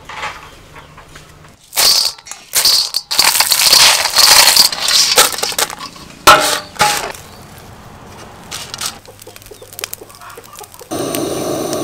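Tiny clam shells clattering and crackling as they are stirred and dry-roasted in a hot metal pan, in loud bursts through the first part. A steady sizzle starts near the end.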